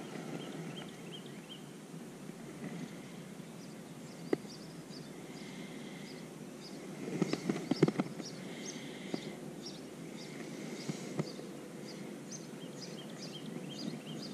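Songbirds chirping in series of short, high, repeated notes over a steady outdoor background hiss, with a cluster of knocks and clatter about halfway through and a couple of single clicks.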